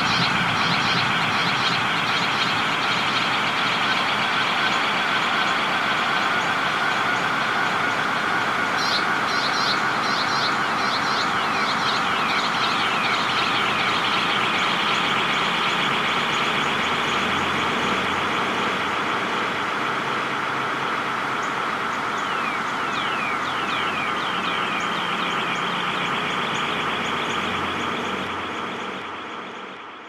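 Spring birdsong recorded on a phone with an added echo effect: a dense chorus with runs of quick falling notes that come and go, fading out near the end.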